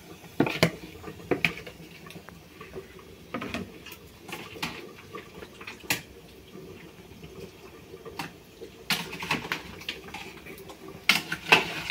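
Irregular clinks and knocks of utensils against metal pots and pans, over the low bubbling of water boiling on the stove.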